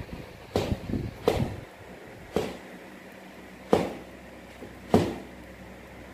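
Five sharp knocks, unevenly spaced over about five seconds, the first two closer together.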